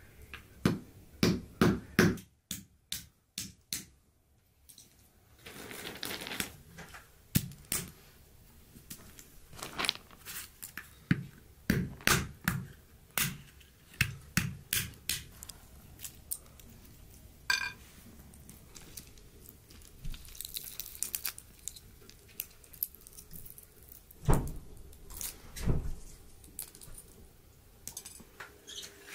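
Wooden pestle pounding in a wooden mortar: runs of dull knocks, about two a second, with pauses between the runs.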